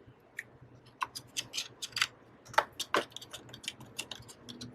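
Small, irregular clicks and ticks of a precision screwdriver and metal parts as a tiny battery screw is found and fitted inside an iPad Pro, coming faster from about halfway.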